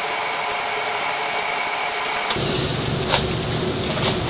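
Steady hiss of room noise, with a few faint plastic clicks in the second half as a 3x3 puzzle cube is turned in the hands.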